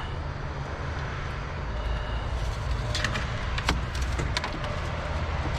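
A vehicle engine running steadily with a low rumble, with a few light clicks about three to four and a half seconds in.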